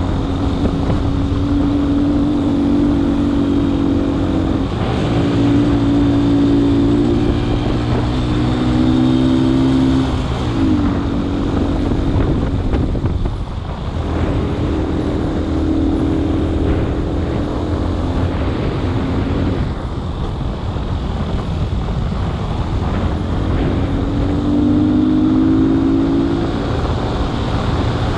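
A vehicle engine pulling along a rough dirt track, with steady road rumble throughout. The engine pitch climbs gently, then drops a few times as it shifts or eases off, and climbs again near the end.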